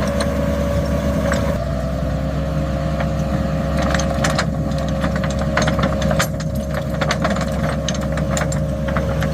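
Trencher engine running steadily with a constant whine, over many scattered sharp clicks and rattles.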